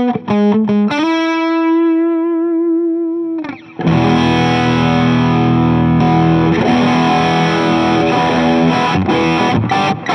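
Electric guitar through a King of Tone clone overdrive pedal and a Fuchs ODS amp simulation, played with overdriven tone. A few quick single notes lead into a held note with vibrato that fades away, then a sustained distorted chord rings out from about four seconds in, with a few chord changes near the end.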